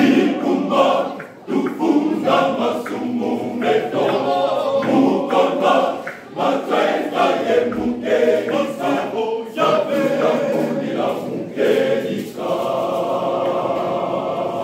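Men's church choir singing unaccompanied in parts, phrase by phrase with short breaks for breath, moving into long held chords near the end.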